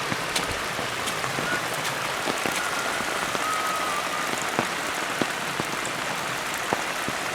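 Steady hiss of rain falling, with scattered drops hitting close by.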